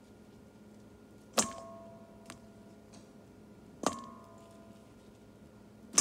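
Stainless steel bowl clanking three times, about two and a half seconds apart, each knock ringing on briefly, as sweet potato sticks are transferred into it.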